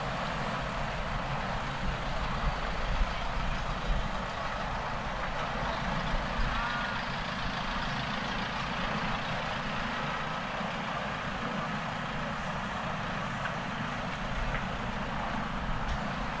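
Airbus A320 airliner's jet engines running, a steady noise with a low rumble.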